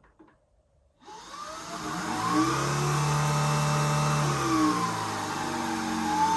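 Shark IZ320UK cordless stick vacuum switched on about a second in, its motor whine rising to speed, then running on low power in hard floor mode with its pitch dipping and recovering a couple of times.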